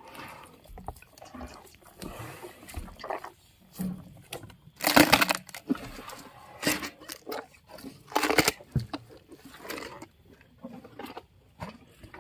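Hippopotamus chewing and crunching mouthfuls of pumpkin and vegetables, with wet, irregular mouth sounds. Several louder bursts come through, the loudest about five seconds in.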